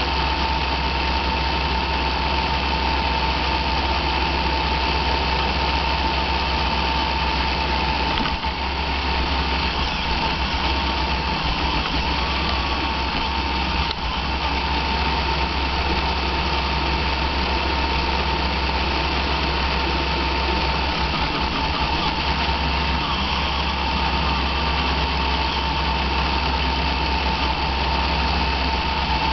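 Roomba robot vacuum running, heard from on board: a steady motor whine over a constant low hum and brush noise.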